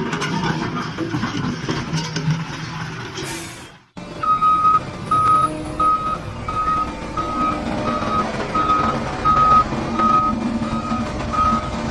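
Construction vehicle engine running. After a sudden break about four seconds in, a reversing alarm beeps steadily, about three beeps every two seconds, over the engine.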